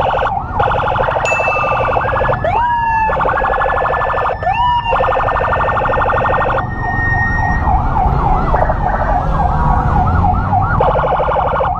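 Several electronic emergency sirens sounding together, from an ambulance and its escort motorcycles: a rapid pulsing yelp in stretches, two rising wail sweeps in the first half, and a fast warble taking over in the second half, over motorcycle engine and road rumble.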